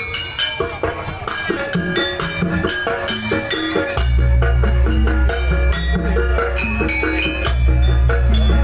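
Live Jaranan dance music from a gamelan-style ensemble: struck metallophones ring out in a repeating melodic figure. A deep, steady bass comes in about four seconds in.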